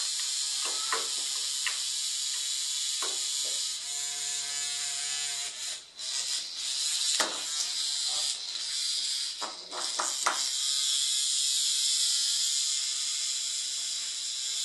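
Hexbug vibration-powered toy buzzing as it skitters across a tiled floor: a steady high-pitched buzz that drops out briefly twice, around the middle.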